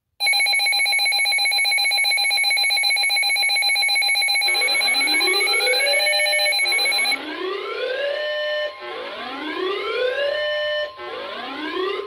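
Weather alert radio alarms going off for an incoming Special Marine Warning. A loud, rapidly pulsing electronic beep sounds for about seven seconds. From about four seconds in, a rising whoop repeats about every second and a half, and a steady tone joins it near the end.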